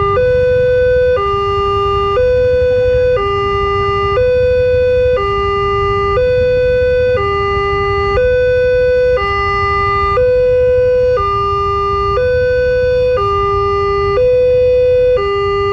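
Electronic railway level-crossing warning alarm, alternating steadily between a higher and a lower tone, each held about a second: the crossing is closed for an approaching train.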